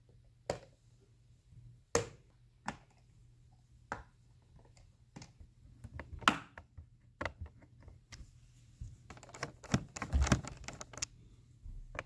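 Precision screwdriver working the small screws of a Dell G15 laptop's plastic back panel: scattered small sharp clicks and ticks of metal bit and screw against the panel, coming more thickly about nine seconds in.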